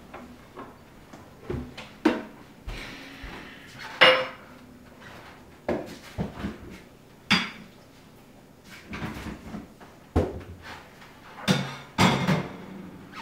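Dishes and cutlery clinking and clattering as they are handled at a kitchen counter: a string of separate sharp knocks and clinks with a short ring after each, the loudest about four seconds in.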